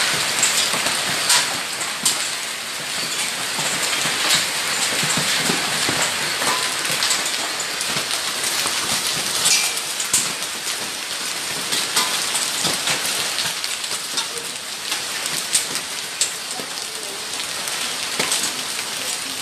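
Hailstorm: hail and rain pouring down in a dense, steady hiss, with many sharp ticks and cracks of hailstones striking the ground and nearby surfaces.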